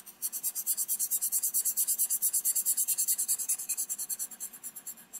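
Sharpie fine-point marker scribbling rapidly back and forth on paper, shading in a solid circle: quick, even, scratchy strokes that thin out near the end.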